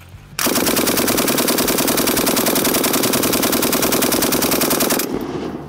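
DPM light machine gun (late-model DP-28) in 7.62×54R firing one long full-auto burst at about ten shots a second. The burst starts half a second in and stops about five seconds in, followed by a short tail dying away.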